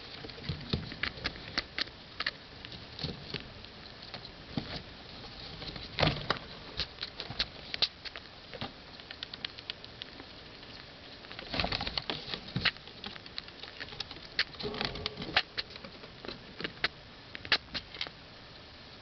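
Pet rats sneezing over and over: many short, sharp sneezes scattered irregularly, some in quick clusters about six seconds in and around twelve seconds in. The sneezing is a sign that the rats are sick.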